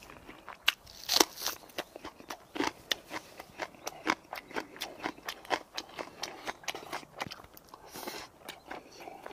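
A person biting into and chewing a raw green onion (daepa) stalk: a dense run of crisp crunches and mouth clicks, several a second, the loudest about a second in.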